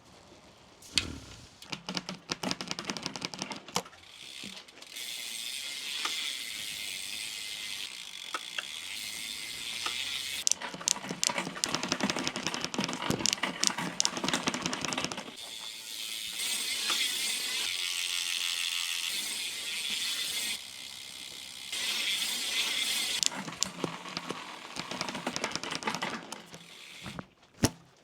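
Bicycle drivetrain turned by hand: the chain runs over the sprockets with the rear freewheel's pawls clicking rapidly. It goes in several spells of a few seconds, stopping and starting.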